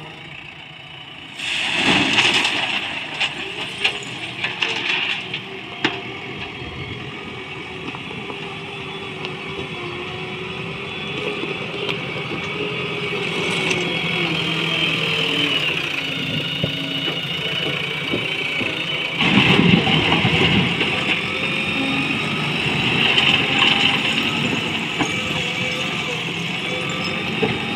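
JCB backhoe loader's diesel engine running and revving as it works railway ballast. A loud rattling crash of stones pouring into the tipper truck's steel body comes about two seconds in, and another loud scraping burst around twenty seconds in as the bucket drives into the ballast pile.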